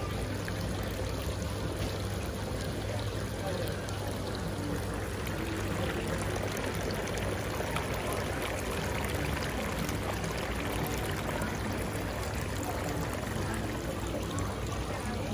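Decorative garden water fountains running: water pouring and trickling steadily into their basins, over a low steady hum.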